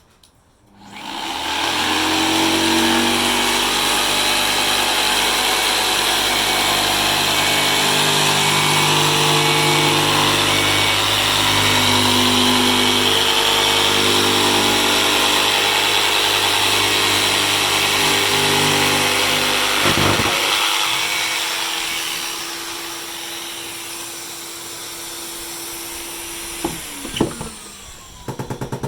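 Mafell jigsaw cutting through Celotex insulation board along a guide rail, with a dust extractor drawing from it: a loud steady saw sound starts about a second in and runs for about 19 seconds. It stops with a knock, after which a quieter steady motor hum with one held tone carries on, and a few clicks come near the end.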